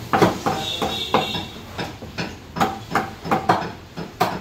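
Meat cleaver chopping chicken into curry pieces on a thick wooden log block: a quick, uneven run of chops, about three a second.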